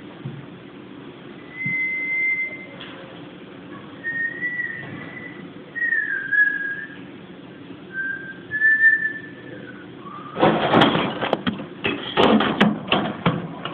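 Several soft, whistle-like tones, each about a second long, some held level and one sliding down. From about ten seconds in, a loud rustling and clicking noise takes over.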